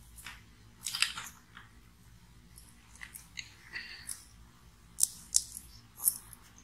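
Hands twisting and handling thin insulated electrical wires and cable: soft rustling with scattered crackles and several sharp light clicks, the sharpest about a second in and three more near the end.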